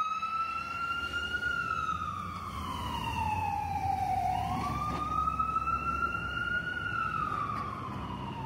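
Ambulance siren wailing in slow sweeps: the pitch falls over about three seconds, swings back up about four seconds in, and falls again near the end. Under it is a low rumble of city traffic.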